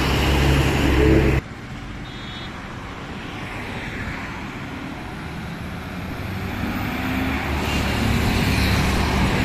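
Diesel engine of a heavily loaded goods truck running slowly and loudly past close by, cut off suddenly about a second and a half in. After that, steady highway traffic noise that grows louder near the end as more vehicles approach.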